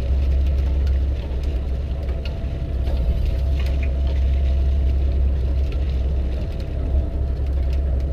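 Boat engine running steadily, a loud low drone with a faint steady whine above it, while a hand-cranked line reel is wound, giving faint scattered clicks.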